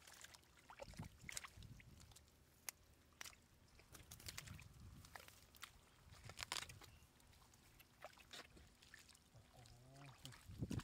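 Faint wet squelching and splashing of hands working in shallow mud and fish thrashing in muddy water, a scatter of short splats and clicks over a low rumble.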